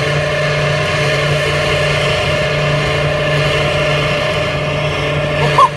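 Mercedes-Benz 300 SLR racing engine, a straight-eight, running at steady high revs on the film's soundtrack, played through loudspeakers. There is a brief, louder sharp sound just before the end.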